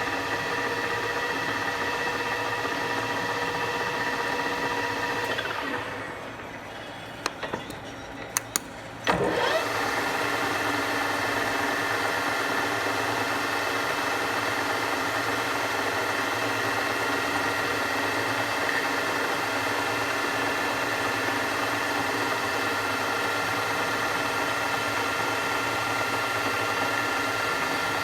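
Enshu VF 2 milling machine running with a steady whine. It winds down about five seconds in, a few sharp clicks follow, and about nine seconds in it spins back up with a rising whine and runs steadily again.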